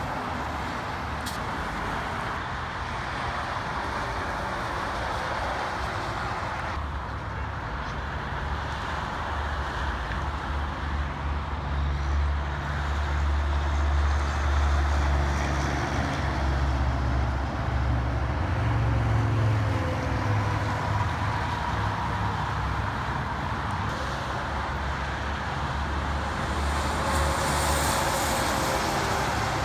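Highway traffic with heavy diesel trucks passing. A dump truck's engine rumble builds about a quarter of the way in and stays loud until about two-thirds through. Tyre and wind hiss rises near the end as a semi tractor passes.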